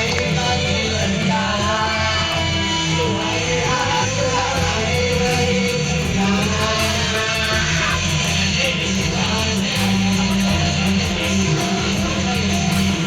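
Music with strummed guitar over a steady bass line.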